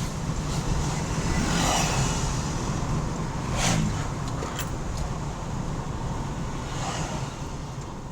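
Toyota Hilux engine running with its turbocharger, a steady low rumble broken by short rushes of air about two seconds in, near four seconds and near seven seconds. The level falls off towards the end.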